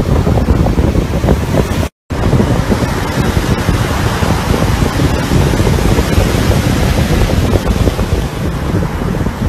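Sea surf surging up a concrete slope and washing over a parked convertible, with heavy wind buffeting the microphone. The sound drops out completely for a split second about two seconds in.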